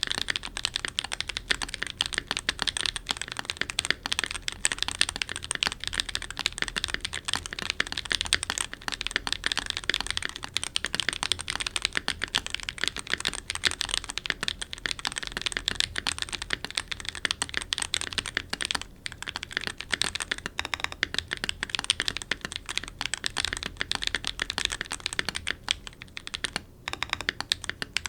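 Fast continuous typing on a mechanical keyboard with lubed Gateron Baby Kangaroo tactile switches in an aluminium-plate, foamed TKL case with DCS keycaps: a dense stream of keystroke clacks, with a couple of brief pauses.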